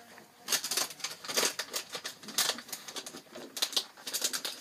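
Irregular rustling and scraping close to the microphone, in quick uneven bursts: handling noise as the phone and the things around it are moved.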